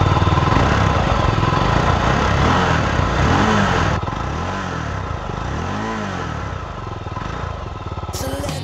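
Jawa 350 OHC Special's single-cylinder four-stroke engine idling, with the throttle blipped several times so the revs rise and fall.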